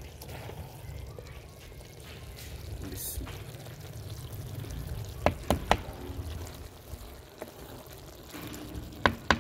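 Thick vegetable curry being ladled from a clay pot onto a clay plate: wet sloshing and plopping of the food, with sharp knocks of the metal ladle against the clay, three in quick succession about five seconds in and two more near the end.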